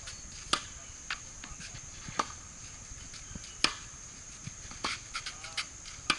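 Tennis ball being struck with a racket and bouncing on the hard court: a series of sharp pops at irregular gaps of a second or so, the loudest about halfway through. A steady high insect trill runs underneath.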